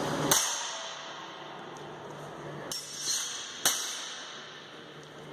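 Steel longsword blades (federschwerter) clashing during a fencing exchange: three sharp metallic strikes with a brief ring, about a third of a second in, near the middle, and once more a second later.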